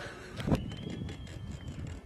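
A single sharp knock about half a second in, then a faint high whistle that rises and falls over about a second, over a low outdoor rumble.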